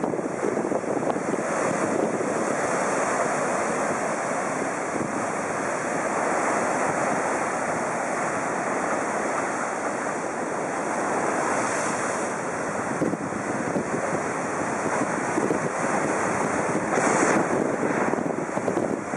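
Heavy surf breaking and washing up a sand beach in a continuous rush, with wind buffeting the microphone.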